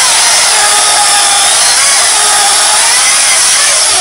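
Milwaukee M18 cordless electric chainsaw cutting through a log, its motor running loud and steady under load without bogging; the pitch falls away near the end as the blade comes through the cut.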